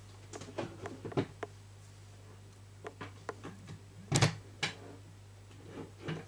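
Scattered clicks and knocks of small objects being handled and set down on a tabletop, the loudest about four seconds in, over a steady low electrical hum.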